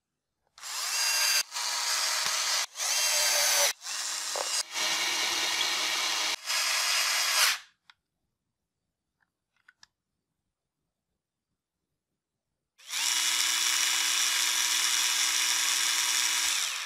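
Worx WX240 4 V mini cordless electric screwdriver running, working small screws. Its motor whirs in about six short runs with brief stops in the first half. After a pause it runs steadily for about four seconds near the end.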